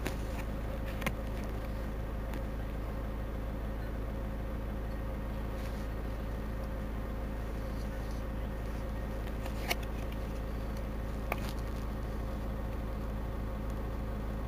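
Otokar Navigo T city bus engine running steadily at an unchanging pitch, with a few faint clicks.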